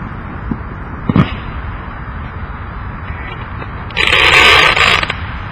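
Fireworks from a consumer firework cake: a dull thump about a second in, then a loud hissing burst lasting about a second, over steady background noise.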